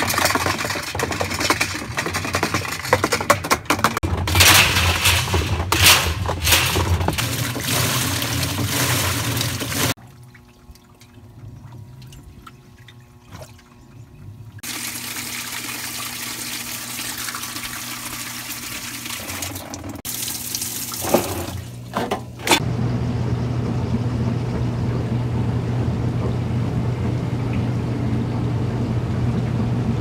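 Water rushing into the drum of a Whirlpool Cabrio top-load washing machine as it fills, loud and splashing, with a quieter stretch partway through. For the last several seconds the washer runs with a steady low hum under the water noise.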